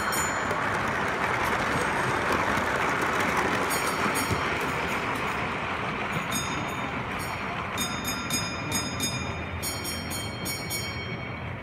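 Model railway goods train of vans running past close by on the layout track, a steady rumble of wheels on rail that fades as it draws away, with sharp clicks and ticks in the second half.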